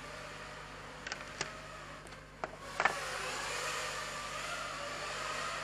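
FPV racing quadcopter (QAV210 frame, ZMX 2300kv brushless motors on 5-inch props) flying, a wavering propeller whine echoing through a large empty hall. There are a few sharp ticks between one and three seconds in, and the whine gets louder about three seconds in.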